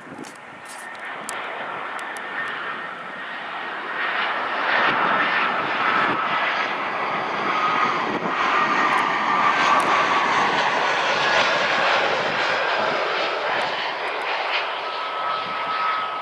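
Jet airliner engines passing overhead as a steady rush with a faint whine. The noise swells about four seconds in, holds, then fades slowly toward the end.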